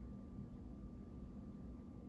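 Casablanca Panama ceiling fan running, a faint steady low hum with a thin, even whine above it.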